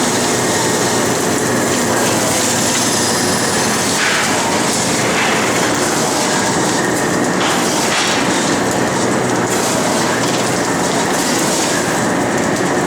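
Mackerel filleting machine running, a continuous mechanical clatter with a steady low hum underneath.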